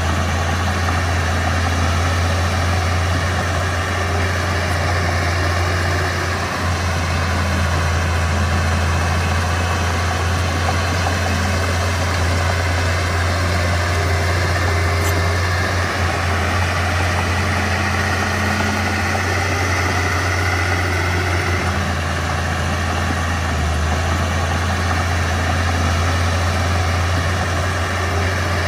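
Mitsubishi BD2F bulldozer's diesel engine running steadily, with a deep even drone that barely changes.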